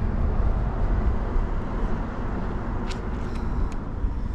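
Steady low rumble of urban outdoor background noise, with a few faint clicks about three seconds in.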